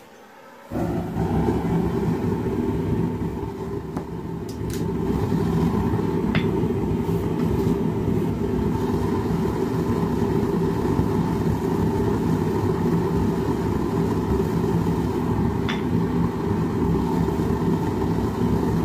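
Small gas forge's burner starting up about a second in and then running steadily with a loud, low rushing noise while the steel stock heats. A few faint clicks sound over it.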